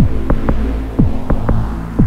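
Suspense film score: a low pulse that drops in pitch about once a second, each followed by a pair of short clicks, over a steady low drone.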